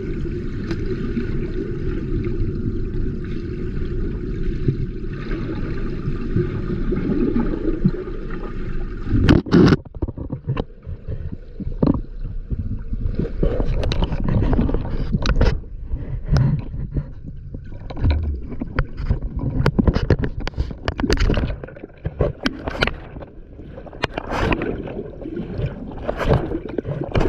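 Water rushing and gurgling close to the microphone for about nine seconds, then a long run of irregular knocks, scrapes and splashes.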